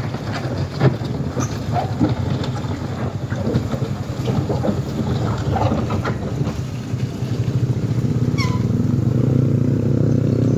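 A vehicle engine running, with scattered knocks and clatter; from about nine seconds in a higher, steady engine note comes in and grows louder.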